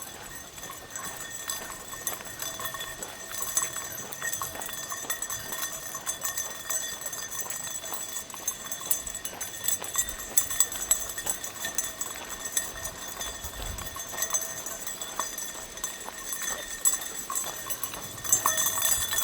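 Footsteps of a person and dogs walking along a road, a steady patter of small irregular clicks and scuffs.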